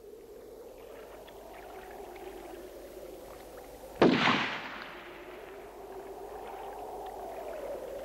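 A single rifle shot about halfway through: one sharp crack with a short ringing tail that dies away within about a second, over a faint steady background.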